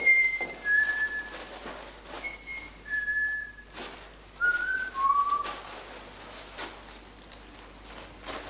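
A person whistling a slow tune of about seven held notes that step downward at the end; the whistling stops about five and a half seconds in. Soft scattered footsteps sound on stairs.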